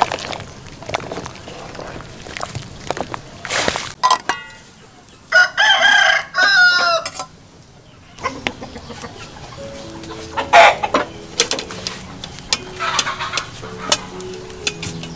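A rooster crows once, about five seconds in, a single call lasting about two seconds, the loudest sound here. Around it there are light clinks and knocks, and faint background music comes in near the end.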